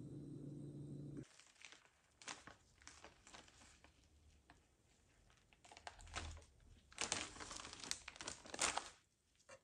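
Plastic packet of spring roll pastry sheets crinkling and rustling in irregular bursts as sheets are peeled off and the packet is handled, loudest near the end. A low steady hum in the first second cuts off abruptly.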